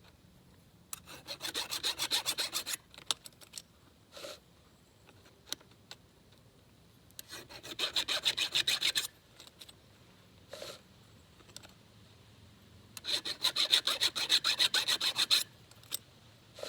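A hand file rasping on a chainsaw chain in three bouts of quick back-and-forth strokes, each bout about two seconds long, with a single light tick between bouts.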